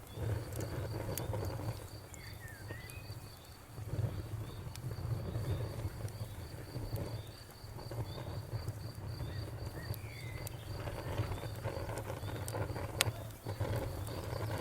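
Campfire crackling, with scattered pops and one sharp pop near the end. A cricket chirps steadily behind it at a rapid even pulse, and a low rumble comes and goes.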